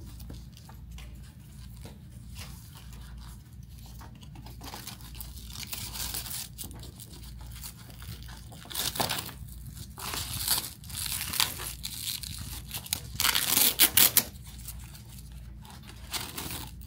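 Hook-and-loop (Velcro) straps on a walking boot being pulled open and pressed shut, with soft handling rustle at first and then a run of short rips in the second half, the loudest group about three-quarters of the way through.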